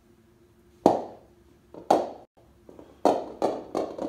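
Bowling balls in a home-made five-ball Newton's cradle knocking into one another, giving sharp clacks that die away quickly. Two come about a second apart, then a quicker run of four near the end.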